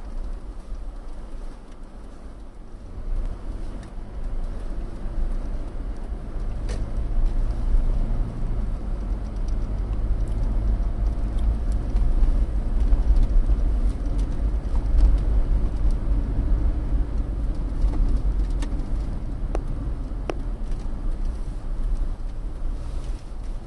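Car interior road noise heard through a dashcam: tyres on a snow-packed road with the engine underneath, a steady low rumble that builds over the first several seconds as the car picks up speed and then holds, with a few faint scattered clicks.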